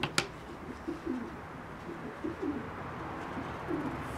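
A pigeon cooing repeatedly in low, wavering phrases. Right at the start there are two sharp knocks as a plastic ruler is set down on cardboard.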